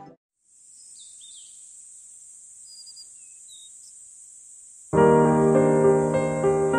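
Faint outdoor ambience: a steady high hiss with a few short bird chirps. Piano music comes in loudly about five seconds in.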